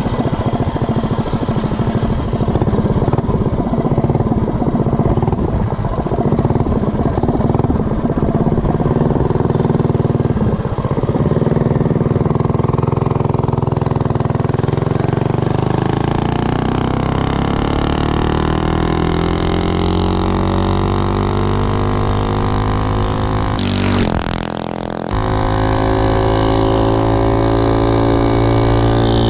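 Tillotson 212 single-cylinder engine on a minibike running wide open on a top-speed run, with road and wind noise. Its pitch climbs steadily as the bike gains speed, then holds at a high, steady note. Near the end the sound drops away briefly for about a second.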